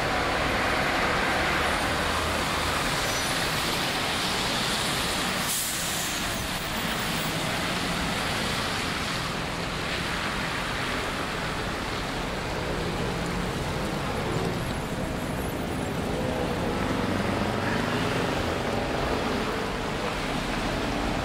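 Diesel buses, Leyland Atlantean double-deckers among them, idling at a stop and pulling away, over the steady hiss of traffic on a wet road.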